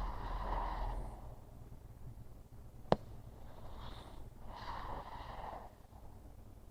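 Sleeping pug breathing noisily: two long breaths, one at the start and one from about three and a half seconds in. A single sharp click comes just before three seconds in.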